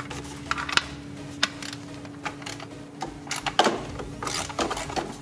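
Hand ratchet clicking irregularly as a loosened 10 mm nut on the upper intake manifold is spun off its stud, with a few louder clicks among them.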